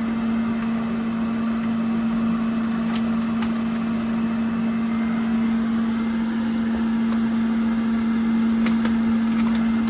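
Steady background hum of a running kitchen appliance or fan, one constant low tone over a soft whirr, with a few faint light taps.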